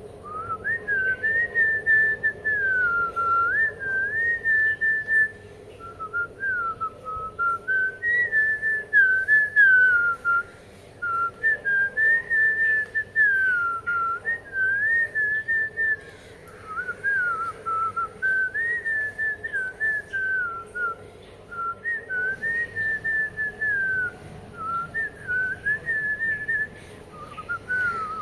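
A clear whistled tune, one pure note sliding slowly up and down in short phrases with brief pauses.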